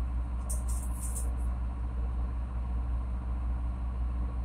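A boat's diesel engine running steadily as a low, even drone. A few brief high hisses come in about a second in.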